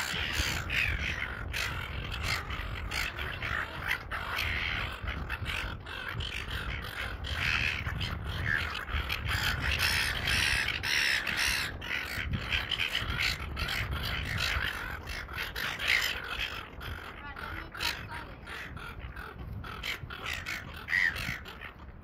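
A flock of seagulls squawking and crying over one another, with wind rumbling on the microphone.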